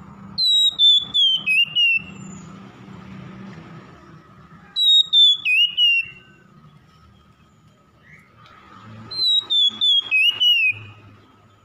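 Male Oriental magpie-robin singing three short phrases, each a quick run of five or six clear whistled notes stepping down in pitch. A faint steady high tone sits behind the song.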